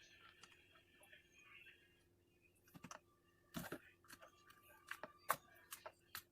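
Near silence with a handful of faint, short clicks and taps, coming irregularly from about three seconds in over a faint steady hum.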